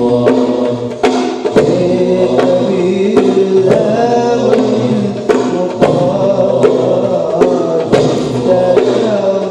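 A group of voices singing a chant-like melody together, over steady percussion strikes about every half second to second.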